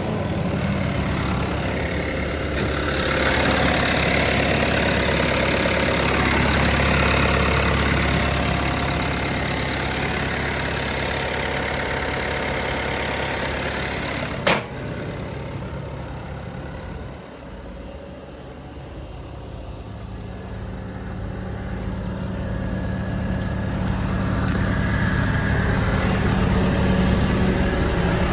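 Diesel engine of a Bobcat T450 compact track loader running, rising and falling in loudness. A sharp click about halfway through, after which the engine is quieter for a few seconds before building back up.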